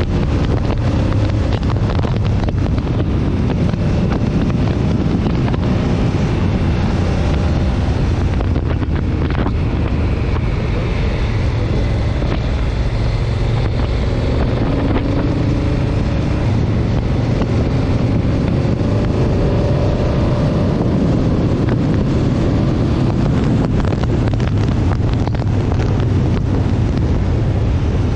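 Motorcycle engine running under way, its pitch rising and falling several times with the throttle, under heavy wind rush on the handlebar-mounted microphone.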